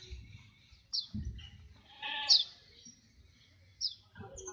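A goat bleats briefly about two seconds in. Several short high chirps come and go around it.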